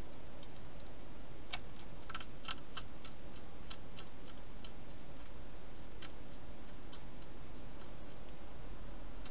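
Wild hedgehog crunching dry food: a run of sharp, irregular clicks, thickest between about one and a half and four seconds in, then sparser, over a steady hiss.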